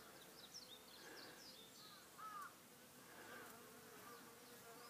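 Faint, steady buzzing of Asian honey bees (Apis cerana) clustering together, with a few faint high chirps in the background, one a little louder about two seconds in.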